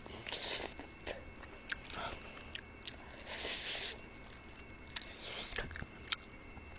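Close-miked eating of spicy chicken feet: chewing and sucking the meat off the small bones, with wet mouth sounds and a scatter of short sharp clicks.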